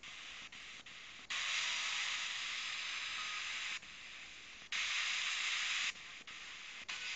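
FM radio static from a Sony Ericsson phone's FM tuner, stepped between frequencies where no station comes in. The hiss gets louder for two stretches of one to two seconds each and is cut by brief dropouts as the tuner steps.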